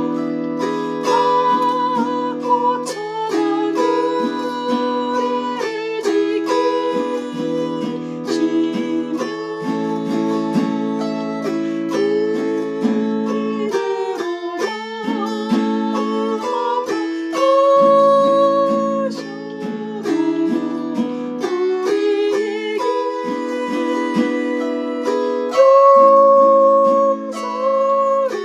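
Chromaharp (autoharp) being strummed in a hymn accompaniment, with repeated chord strokes that change every second or two. A held melody line with a slight waver sounds above the chords.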